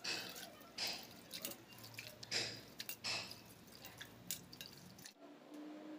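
Hand swishing and rubbing mixed lentils, rice and nuts in water in a stainless steel bowl to wash them, making faint irregular splashes and squishes. The splashing stops about five seconds in.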